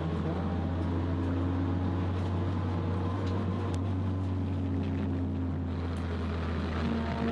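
Toyota Starlet Glanza EP91 race car's engine heard from inside the cabin at speed, a steady running note whose pitch drifts up and down with the throttle.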